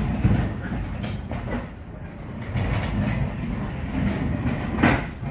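Delivery lorry's diesel engine idling with a steady low rumble; a single sharp knock near the end.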